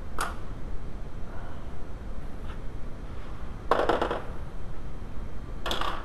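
Hand tools clattering on a metal-topped workbench: a single tick just after the start, a quick rattle of several knocks about two-thirds through, and another short rattle near the end, over a steady low hum.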